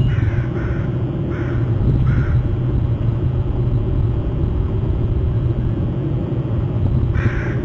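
A crow cawing: four caws in the first two and a half seconds and another near the end, over a steady low rumble.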